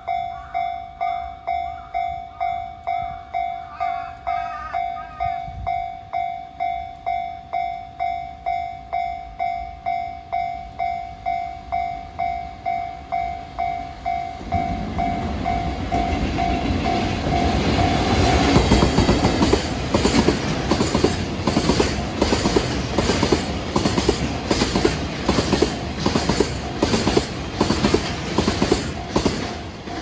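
Japanese level-crossing warning bell ringing, about two strikes a second. About halfway through, a freight train of tank wagons hauled by an EF65 electric locomotive rolls past and drowns the bell out, its wheels clacking over the rail joints in a steady rhythm.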